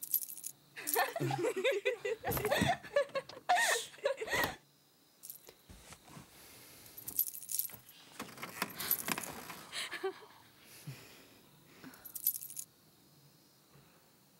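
Light metallic jingling in several short bouts, with laughter during the first few seconds.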